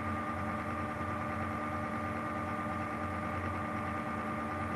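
Steady background hum with several held tones over a light hiss, unchanging throughout.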